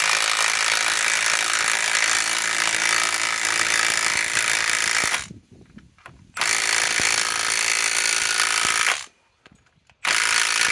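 Cordless compact impact wrench hammering as it drives a lag screw into a log. It runs in three goes: a long run of about five seconds, a second run of two to three seconds after a short pause, and a brief burst near the end.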